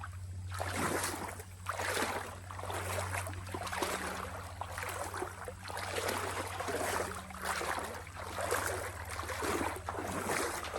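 Legs wading through deep creek water, a sloshing surge with each stride, about one a second.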